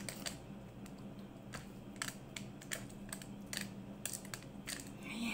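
Irregular light clicks and taps, a few a second, over a faint steady hum.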